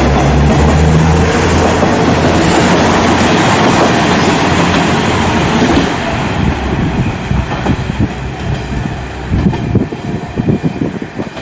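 Diesel railcar on the JR Kamaishi Line running on the rails, its engine drone and wheel noise loud and steady. About halfway through it gives way to a weaker, uneven, gusty noise.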